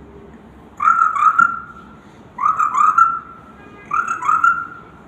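A girl imitating a frog with her voice: three croaking calls, each a quick double note that rises and then holds, about a second and a half apart.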